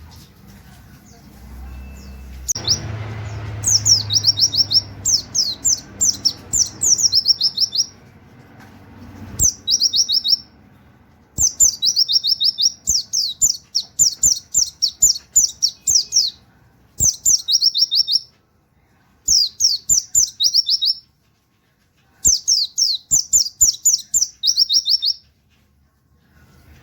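White-eye (pleci) singing in full, rapid song: fast runs of high, short, downward-sweeping 'wit wit' notes like a canary's, in bursts of one to five seconds with short pauses between. Scattered sharp clicks sound between the bursts.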